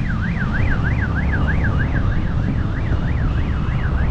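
A siren in a fast yelp, its pitch rising and falling about three times a second without a break, over loud wind and road rumble from riding a motorcycle at highway speed.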